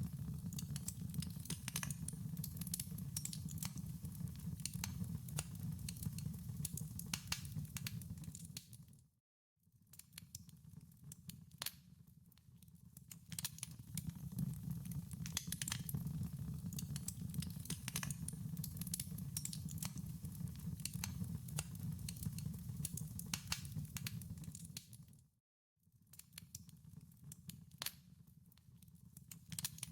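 Wood fire crackling: many sharp irregular pops and snaps over a steady low rumble of burning logs. Twice, about 9 s and 25 s in, the sound fades briefly to silence and comes back.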